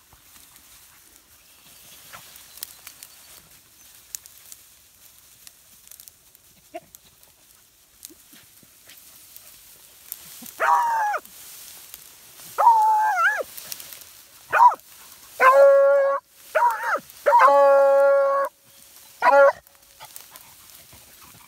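Hound baying: after about ten seconds of faint background, seven calls over the second half, some short and some drawn out to about a second. This is a dog giving voice while working a scent trail.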